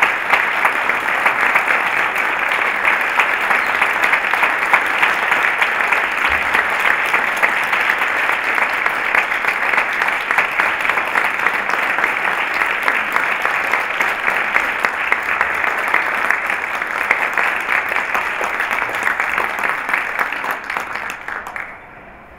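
Audience applauding steadily throughout, the clapping dying away just before the end.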